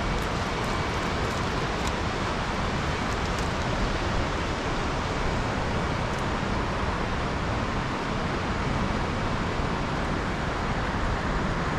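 Steady rushing roar of a swollen, muddy river in flood, with a few faint light clicks in the first few seconds.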